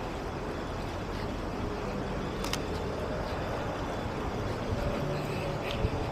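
Steady low rumble of city traffic in the background, with a single sharp click about two and a half seconds in.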